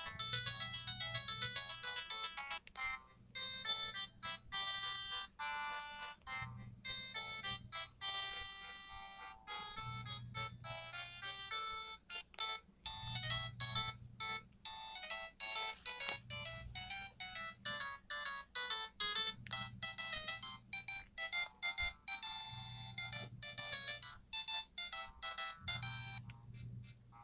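LG TM520 mobile phone playing its built-in ringtone melodies one after another, each a high, bright electronic tune a few seconds long. Short breaks fall between tunes as one ringtone switches to the next.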